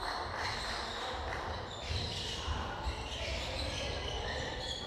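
Basketball game on a hardwood gym floor: the ball thudding as it is dribbled, sneakers squeaking, echoing in the large hall.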